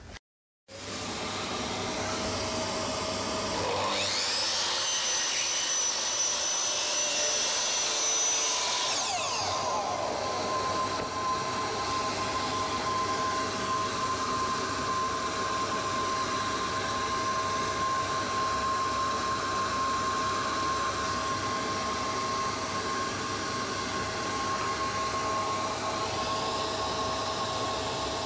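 A shop vacuum or dust extractor switches on about a second in and runs steadily. Between about four and nine seconds a slide miter saw's motor whines up to speed, holds, then winds down.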